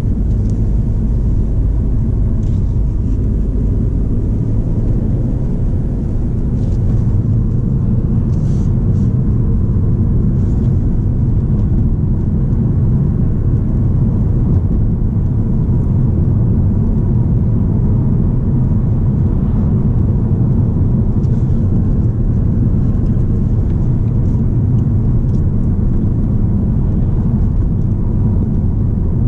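Inside the cabin of a 2013 Volkswagen Passat 2.0 TDI, a four-cylinder turbodiesel, cruising at a steady speed. The engine drone and tyre and road rumble stay even throughout.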